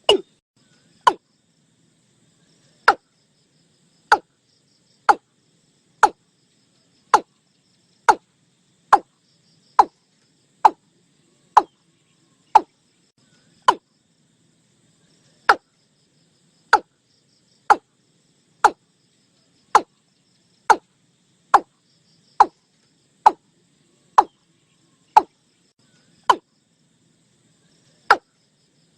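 Watercock calling: a series of short, sharp, knocking notes, about one a second, broken by a couple of longer pauses.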